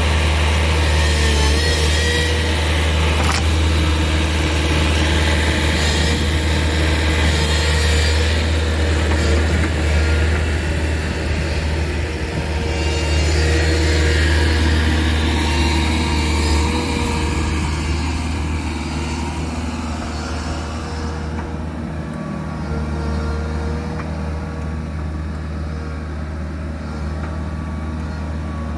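Diesel engine of a 2016 Bobcat Toolcat 5600 running steadily with a deep, constant hum. The sound eases and grows duller about two-thirds of the way through.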